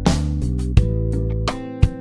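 Instrumental background music led by guitar, with sustained notes and a regular beat.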